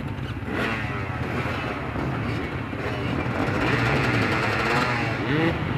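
Several off-road dirt bike engines running together, idling with revs rising and falling.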